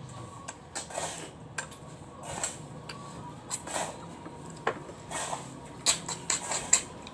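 Irregular small clicks and taps of cooked freshwater snail shells being handled and picked at by hand, with sharper eating noises bunched together near the end as a snail is put to the mouth.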